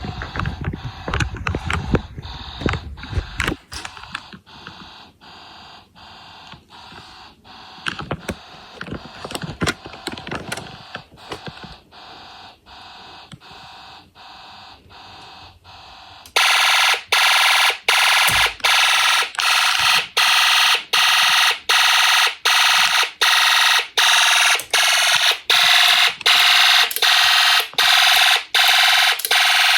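Fire alarm horn of a home-built alarm system sounding in quick, even pulses, faint at first. About sixteen seconds in it jumps suddenly to a loud blare. Some handling knocks and rustles in the first few seconds.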